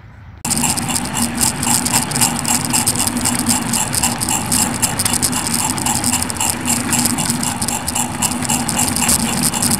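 Heard from on board a G-scale LGB 0-4-0 Porter model train on the move: a steady electric-motor and gear hum, with the wheels clicking and rattling along the track. It starts abruptly about half a second in.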